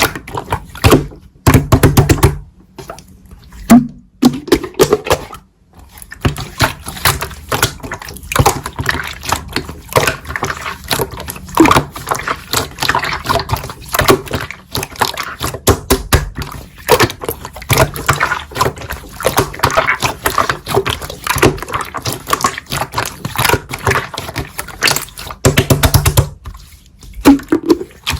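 Slime being squeezed and poked by hand: wet squelches and a dense run of small clicking pops, with louder squashes about two seconds in and again near the end.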